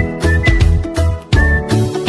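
Upbeat background music with a steady beat, strong bass and a whistled-sounding melody.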